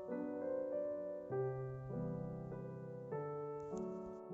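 Background piano music, a gentle tune of sustained notes and chords that change every half second to second.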